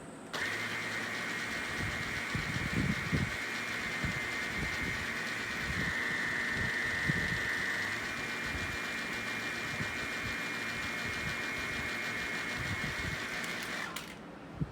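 A vacuum cleaner's motorised floor brush spinning with a steady whine, with no sound from the main suction motor: the cleaner is faulty and does not suck. It starts about half a second in and cuts off suddenly near the end, followed by a click.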